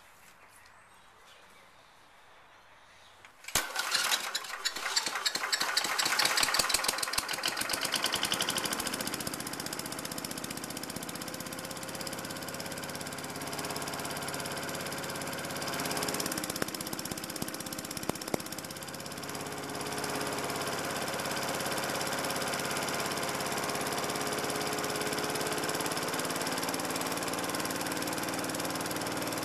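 A Victa lawn mower's four-stroke Briggs & Stratton engine, converted to run on LPG fed into its carburettor, starts about three and a half seconds in. It catches suddenly, is loudest for the first few seconds, then settles into steady running.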